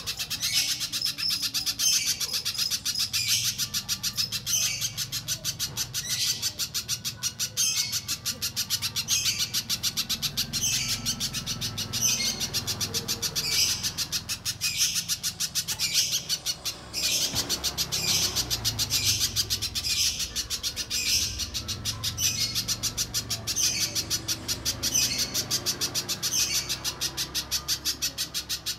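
Little spiderhunter (pijantung pisang) calling: a fast run of sharp, high chips in phrases repeated about once a second. This is a lure recording meant to get other spiderhunters to answer and sing.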